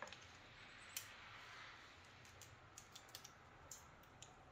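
Faint, sparse clicks of pliers working a cotter pin out of a winch cable hook: one sharper click about a second in, then a scattering of light clicks over quiet room tone.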